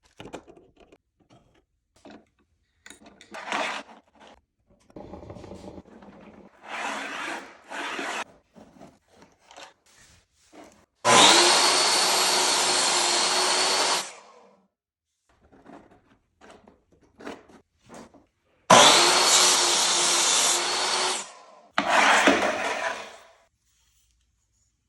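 Table saw running and cutting wood: two loud stretches of about three seconds each with a steady whine, then a shorter one that fades away near the end. Before them come scattered clicks, knocks and short rattles of handling.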